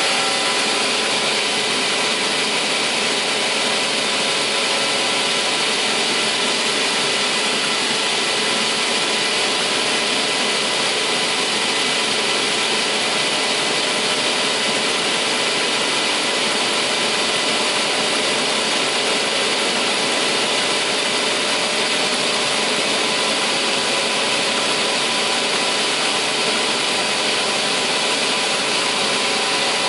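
Torwegge 250/100 chain-feed multi-rip saw running with no board in it: saw blades spinning and the feed chain track moving, a steady, unchanging machine noise with faint steady tones.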